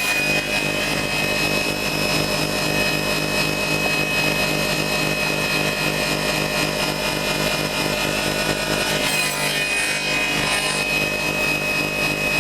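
Homemade saw with its circular blade tilted to 45 degrees, running steadily with a high whine while cutting the angled end of a wooden frame profile. The sound lightens about nine seconds in.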